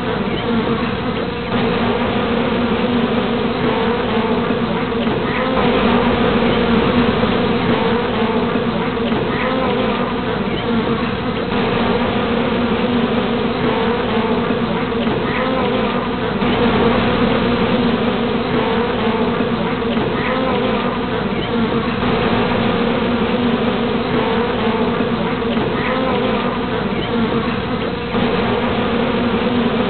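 A honeybee colony buzzing in a dense, steady hum with no breaks.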